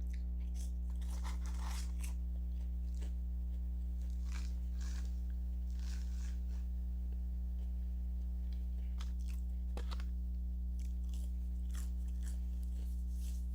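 A person chewing and biting crunchy fast food close to the microphone, with scattered crisp crunches, over a steady low hum.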